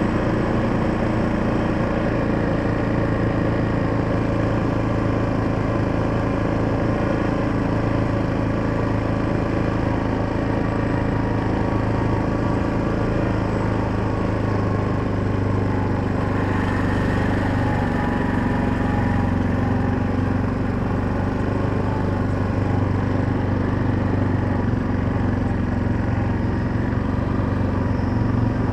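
Engine of a small vehicle running at a steady pace while being driven, with an even note that hardly changes.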